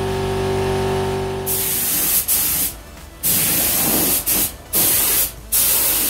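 Compressed-air paint spray gun hissing in about five short bursts as the trigger is pulled and released while spraying a car body shell. A steady hum with a hiss runs for the first second and a half, before the bursts.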